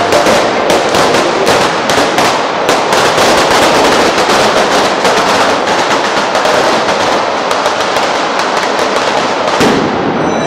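A string of firecrackers (a traca) going off along the street: a loud, dense, rapid crackle of bangs that stops abruptly near the end.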